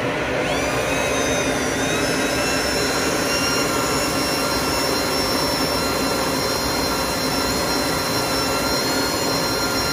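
AC Infinity 8-inch inline duct fan running near full speed: a steady rush of air with a whine that rises in pitch about half a second in as the fan is turned up to its top setting, then holds steady.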